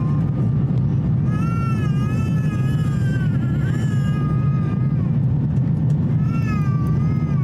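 Steady cabin drone of an Airbus A350-1000 in flight, from its Rolls-Royce Trent XWB engines and the airflow. Over it a baby cries in long, wavering wails, from about a second in to about five seconds, then again near the end.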